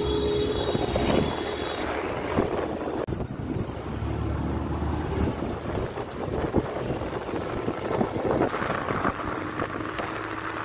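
Road noise from riding on a moving scooter through traffic: wind past the microphone, the scooter's engine and other vehicles passing close by.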